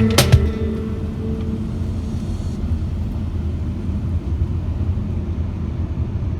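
Background guitar music stops just after the start, leaving a steady low rumble.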